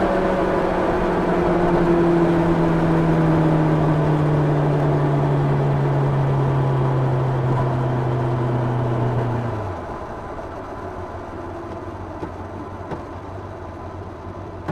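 Onboard sound of a 1990 Yamaha FZR 600's inline-four engine with wind rush, its revs falling slowly and steadily. About ten seconds in the engine note drops away suddenly and everything gets quieter, leaving a lower steady hum.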